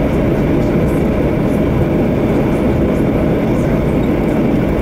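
Steady cabin rumble and hiss of an Airbus A321 rolling along the ground, heard from a window seat over the wing, with its CFM engines running.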